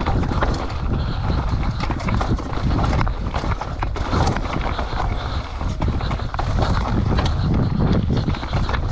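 Mountain bike descending a downhill trail at speed, with wind rumbling on the microphone and rapid, irregular clattering of the bike over rough ground.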